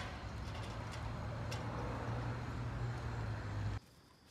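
A motor vehicle engine running with a steady low hum over street noise, cutting off abruptly near the end.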